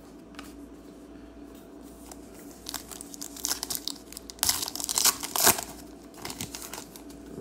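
Foil wrapper of a baseball card pack being torn open and crinkled by hand: a quick run of sharp crackling rustles that starts a couple of seconds in and is loudest around the middle.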